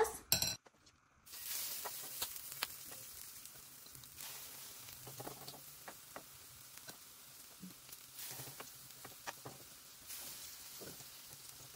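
Chicken tortitas (shredded chicken, egg and flour batter) frying in hot oil in a skillet: a steady sizzle with scattered small pops and crackles, swelling a few times.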